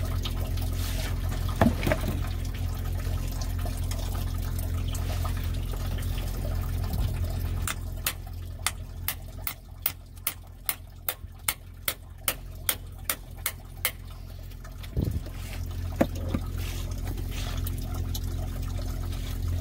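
Engine coolant pouring in a steady stream into a plastic tub. About a third of the way in comes a run of about fifteen sharp, evenly spaced hammer taps on a pry bar, two or three a second, as it is driven through a truck oil filter to punch a drain hole.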